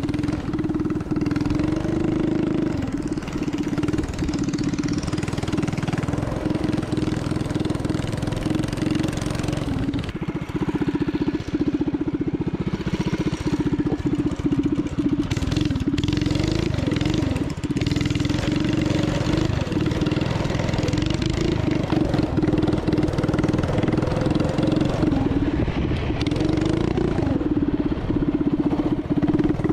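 Small engine of a motorized drift trike running, heard from the rider's seat, its pitch holding steady with slight rises and dips.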